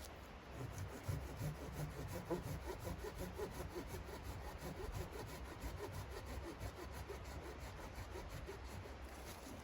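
Rhythmic rasping strokes, steady throughout, of a hand saw cutting wood.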